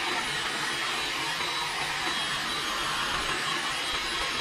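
Electric heat gun running steadily, its fan blowing a constant rush of hot air over a PVC pipe to soften the plastic.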